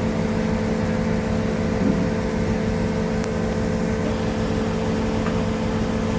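Construction crane's engine running steadily, a constant pitched drone over a low rumble.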